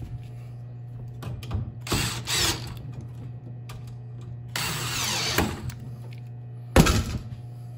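Cordless drill driving screws into a step stool's metal tube frame in short runs. There is a brief pair of runs about two seconds in, a run of about a second near the middle, and a short, sharp, loudest burst near the end as a screw seats.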